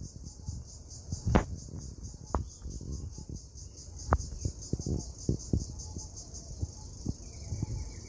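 A steady, high-pitched insect chorus chirring in an even pulsing rhythm. Scattered low thumps and rustles sit close to the microphone, the loudest about a second and a half in.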